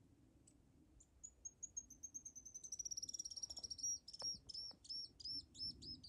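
A bird singing: a run of high thin notes that quickens into a fast trill, then slows into separate arched notes, about three a second.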